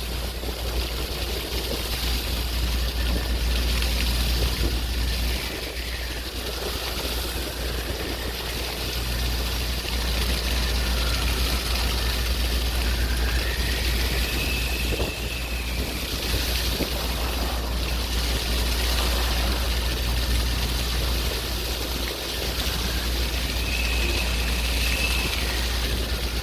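Sea waves washing in a steady, even wash over a constant deep rumble. Faint high wavering tones come twice, near the middle and near the end.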